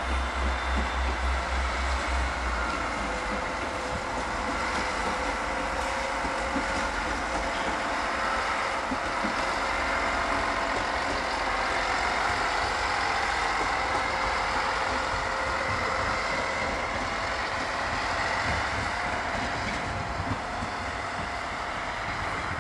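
SNCF X 73500 diesel railcar running slowly past, its engine giving a steady drone with faint whining tones that drift slightly in pitch. A low fluttering is heard in the first couple of seconds.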